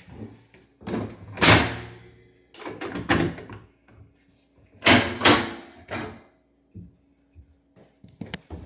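Wooden kitchen cabinets being opened and shut: a few knocks and bangs about a second or two apart, the loudest pair about five seconds in, with a faint steady hum underneath.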